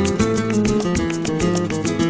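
Background music: acoustic guitar played in a Latin style over a quick, steady beat.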